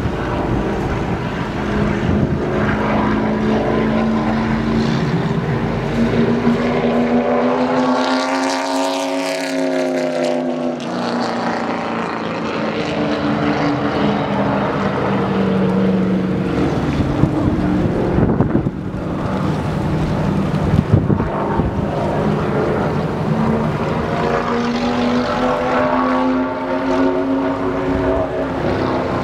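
Stock car engines running at racing speed around a short oval track, the pitch rising and then falling as cars pass, loudest about eight to ten seconds in and again near the end.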